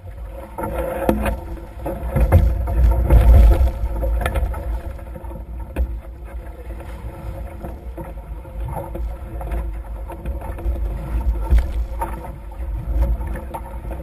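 Nacra F18 catamaran sailing: water rushing along the hulls with spray and slaps against them, over wind rumbling on the microphone. It is loudest about two to four seconds in.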